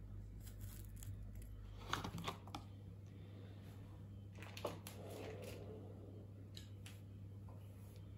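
A few light taps of a chef's knife cutting Brussels sprouts on a plastic chopping board, over a steady low hum.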